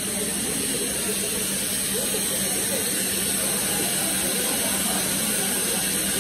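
Indian Railways sleeper coaches rolling slowly past along the platform: a steady hiss, with a steady low hum underneath.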